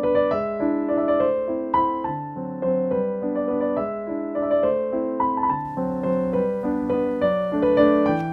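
Background piano music: a steady flow of single notes over held lower chords.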